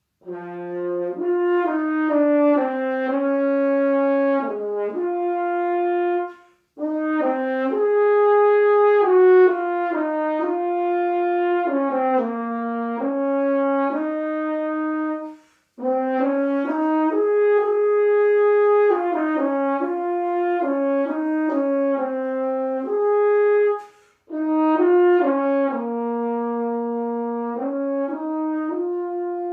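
Unaccompanied French horn playing a slow melody of held notes in four phrases, with short pauses between them.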